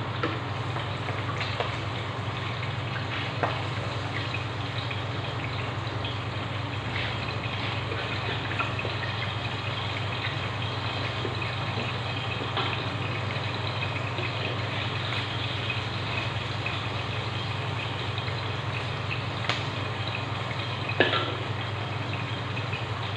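Egg frying in a wok, sizzling steadily, with a few sharp knocks and scrapes of a spatula against the pan, the loudest near the end. A steady low hum runs underneath.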